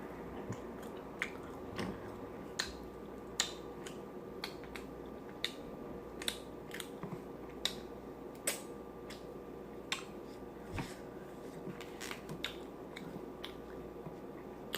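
Close-miked eating: chewing with wet mouth smacks, sharp clicks coming irregularly about once a second, over a steady low hum.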